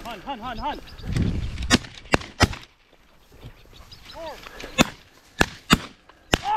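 A covey of upland game birds flushing with quick repeated clucking calls, followed by shotgun shots from more than one hunter: three close together about two seconds in, then four more in the second half.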